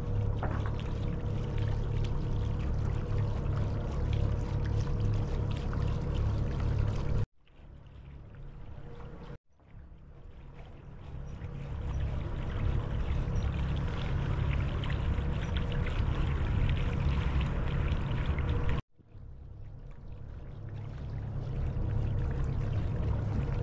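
A sailboat's inboard engine running steadily as the boat motors along, with water rushing past the hull. The sound cuts out abruptly twice and fades back in each time.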